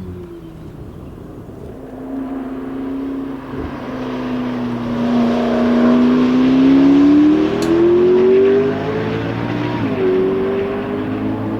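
McLaren P1's twin-turbo V8 accelerating hard as the car closes in and passes, its pitch climbing steadily and loudest in the middle. About ten seconds in the pitch drops sharply with an upshift and starts climbing again as the car pulls away.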